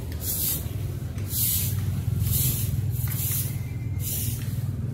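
Soft long-bristled broom sweeping a concrete court: brisk swishing strokes, about two a second, over a steady low rumble.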